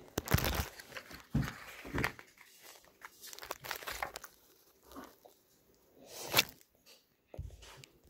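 Phone being handled, with fingers rubbing and bumping over it in irregular bursts of rustling and crinkling. A sharp one comes about six seconds in.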